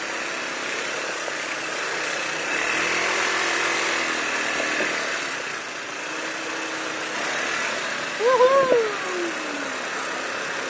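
ATV (quad bike) engines running at low speed on a trail, a steady drone that swells a little about two and a half seconds in.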